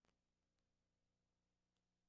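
Near silence: a faint steady low hum.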